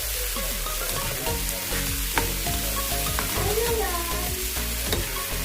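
Food sizzling as it fries in a pan and is stirred, with a couple of sharp clicks of the utensil against the pan.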